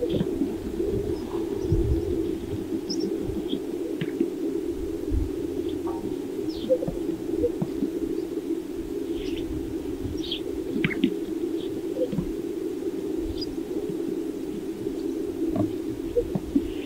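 Greater sage-grouse males displaying on a lek: a steady low cooing chorus with irregular low pops, and scattered short high chirps.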